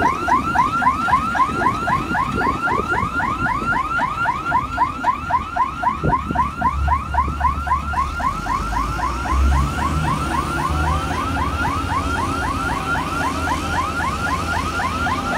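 Electronic warning alarm on a Malkit 997 combine harvester sounding a rapid, even run of rising chirps, about four or five a second, over the low running of the combine's engine.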